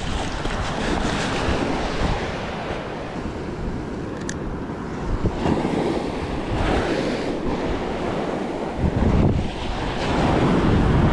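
Surf washing up on a sandy beach, with wind buffeting the microphone in gusts, strongest near the end.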